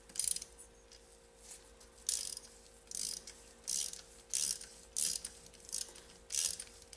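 A hand ratchet wrench being worked in repeated short strokes, each a brief burst of clicks, about one and a half a second.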